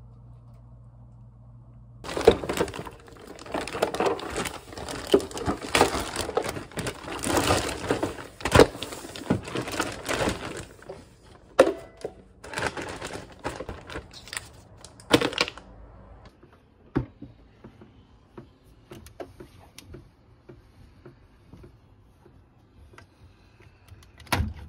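Packing and handling noises: a faint low hum at first, then about nine seconds of dense crinkling with clicks and knocks, thinning out to scattered taps and ticks, with one sharp knock near the end.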